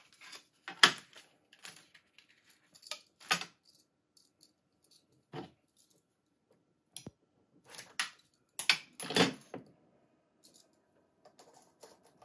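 Irregular clicks and rattles of small plastic cases and an SFP-to-Ethernet adapter being handled, unpacked and fitted into a network switch. The loudest clicks come about a second in and a cluster around eight to nine seconds, with quiet gaps between.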